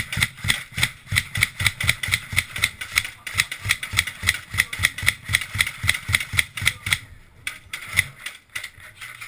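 A person running, footfalls about three a second, each a thump with gear rattling along, breaking off about seven seconds in, then a few more steps near the end.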